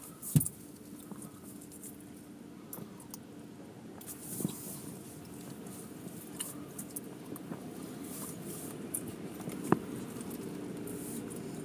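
Muffled hum and rumble of car wash tunnel machinery heard from inside a car's cabin, with faint crackling patter. A sharp knock comes about half a second in and another near the end.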